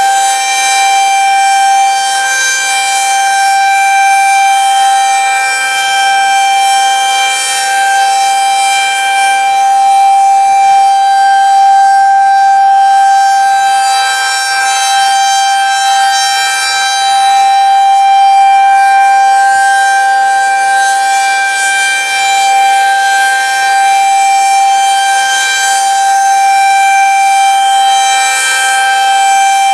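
Federal Signal 2001-SRNB rotating tornado siren sounding its steady Alert signal for a monthly test: one loud, high, unchanging pitch that swells and fades slightly in loudness as the siren turns.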